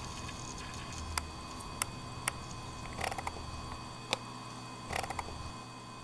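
Sharp clicks at irregular intervals, some in quick clusters of two or three, over a steady low hum with faint steady high tones.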